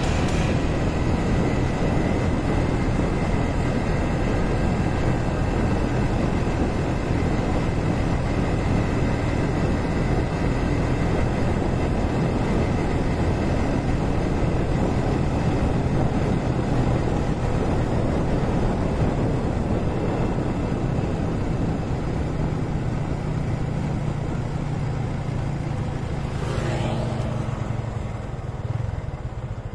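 Motorcycle engine running while riding, under steady wind and road noise. Near the end a sound glides down in pitch.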